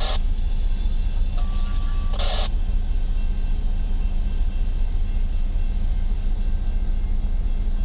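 Diesel freight locomotives passing slowly close by, a steady low engine rumble throughout. Two short bright noises break in at the start and about two seconds later.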